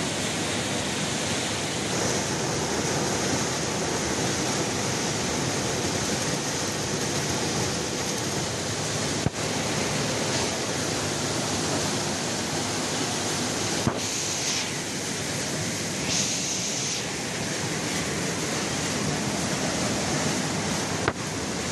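Steady rushing, hissing din of a PE/PP plastic-flake sorting line at work, from the optical colour sorter and its feeders and conveyors. A few short clicks break it, and there are two brief spells of sharper, higher hiss near the middle.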